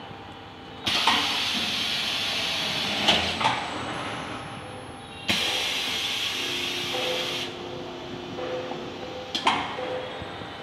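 Plastic spin welding machine running a weld cycle on a plastic toy wheel: two long spells of hissing that start suddenly, about a second in and again about five seconds in, the second with a faint steady hum under it. A few sharp knocks, one near the end.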